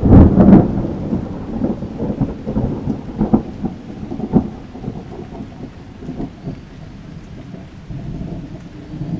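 Loud thunder: a sudden crack right at the start, then rolling, crackling rumbles that die away over about five seconds. Rain falls throughout.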